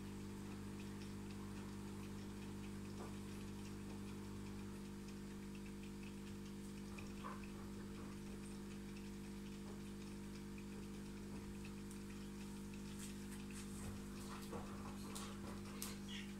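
Steady low hum of running aquarium equipment, with light water drips and plinks that come a little more often near the end.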